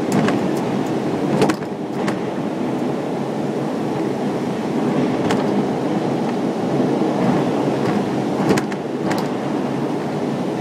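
Gateway Arch tram capsule climbing inside the arch: a steady mechanical running noise with sharp clicks and clanks now and then, several in the first two seconds, one about five seconds in and two more near the end.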